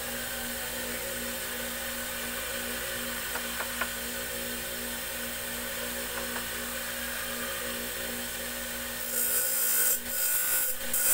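Motor-driven grinding wheel spinning freely with a steady hum while the steel tari blade is held off it. About nine seconds in the blade goes back against the wheel and a loud grinding hiss starts, broken by a few short pauses.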